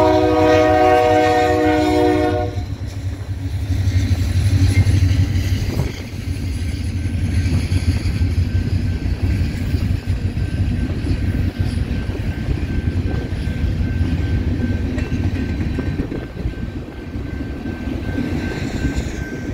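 Union Pacific freight locomotive's air horn sounding a chord that cuts off about two and a half seconds in. The diesel locomotives and freight cars then rumble past close by, their wheels clacking steadily over the rail.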